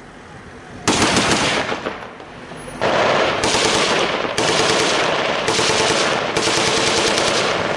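Automatic machine-gun fire: one rattling burst about a second in, then a long run of bursts fired nearly back to back for most of the rest.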